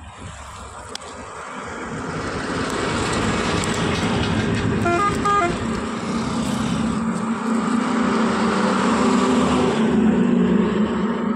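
A road vehicle's engine running close by, growing louder over the first few seconds and easing off near the end, with a short double horn toot about five seconds in.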